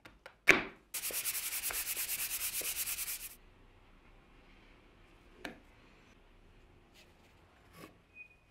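A sharp knock of wood on the workbench, then about two seconds of fast, even rubbing strokes on the wooden board, roughly ten a second, that stop abruptly; a couple of light knocks follow.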